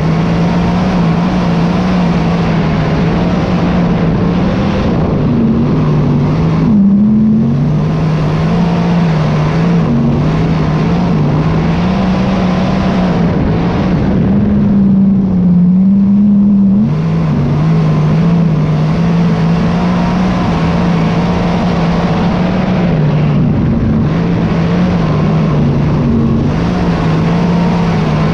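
Chevrolet V8 engine of a dirt modified race car running hard at racing speed, heard from inside the cockpit. The engine note climbs briefly about 7 seconds in and again for a few seconds around the middle, falling back suddenly just after the second climb, then holds a steady lower pitch.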